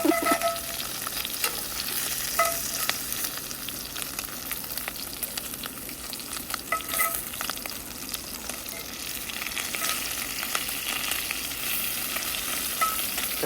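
Bacon sizzling steadily as it fries in a hot pan, with a few sharp clicks now and then.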